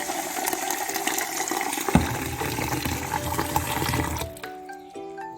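Steady rush of running water, with a sudden knock about two seconds in. A little after four seconds the water stops and music takes over.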